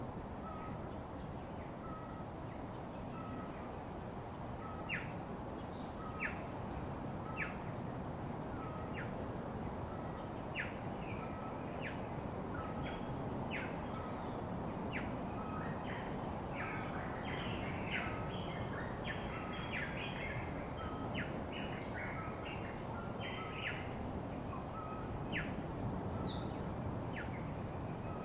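Wild birds chirping and calling in short, sharp notes that come thick and fast through the middle stretch. Underneath is a steady rushing background noise and a thin, high, steady tone.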